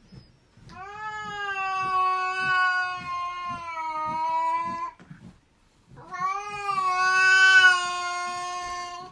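Silver-grey domestic cat, ears flattened, giving a long, drawn-out warning yowl at another cat: two sustained calls of several seconds each with a short break between, the second swelling louder before it stops.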